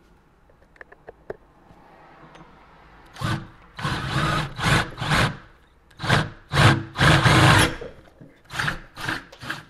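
Cordless drill with a 5/8-inch bit boring into a metal front door. After a few faint clicks, the bit bites in about three seconds in and grinds through the door skin in a string of short spurts with brief pauses between them.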